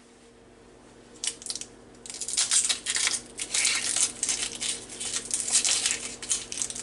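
Dry papery skin of a brown onion being peeled off by hand, crackling and tearing. A few crackles come about a second in, and from about two seconds in it becomes a near-continuous crinkling.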